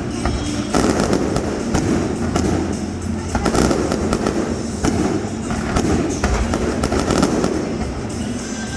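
Aerial fireworks going off in rapid succession: a steady stream of bangs, pops and crackle over a continuous rumble, with music playing underneath.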